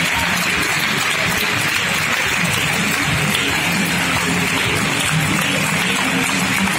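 A large cinema audience giving a standing ovation: dense, steady clapping from many hands.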